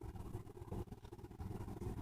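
A quiet, long, low rumbling burp that starts abruptly and runs on unevenly.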